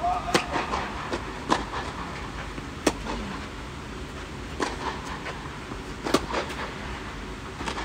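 Tennis rally on a clay court: a serve, then the ball struck by rackets back and forth, a sharp hit about every second and a half, with softer ball bounces between.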